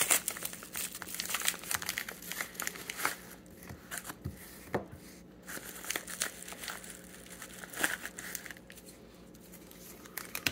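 Clear plastic wrapping and a padded paper mailer crinkling and tearing as a package is opened by hand: a string of sharp crackles, busiest in the first few seconds, then sparser, with a couple of soft knocks along the way.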